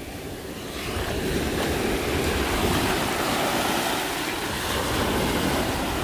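Strong surf breaking on a beach: a dense, steady wash of waves that swells about a second in, with wind buffeting the microphone.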